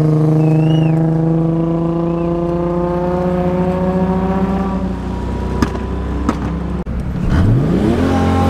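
Nissan 240SX car engine running at low revs under light throttle, its pitch creeping up slowly as the car pulls through. Near the end it revs up quickly in a fast rising sweep.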